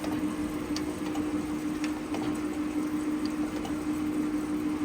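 Jones Shipman 540 surface grinder's hydraulic system running with a steady hum at a reduced table speed, with a few faint ticks.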